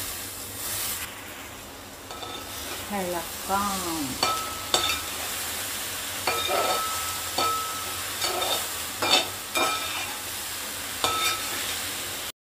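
A metal ladle stirring and scraping cooked vegetables and grated coconut in a wide metal pot (uruli). About a dozen scrapes and knocks each make the pot ring briefly, over a steady sizzle from the hot pan.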